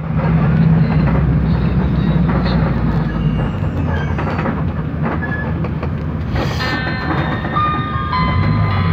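Bus engine running with road rumble and rattling, heard from inside the cabin as it drives. About two-thirds in, music with held notes comes in over it.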